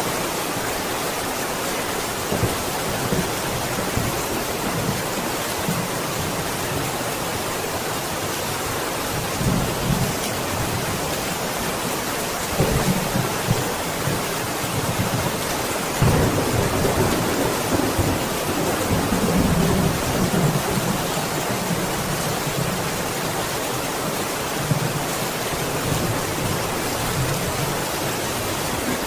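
Steady heavy rain hissing, with low rolls of thunder rumbling in several times, the longest about halfway through.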